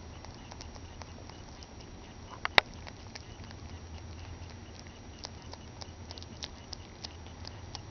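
Lop-eared rabbit chewing a piece of banana: many small quick clicks of its mouth, coming more often in the second half, over a steady low hum. One sharp click about two and a half seconds in is the loudest sound.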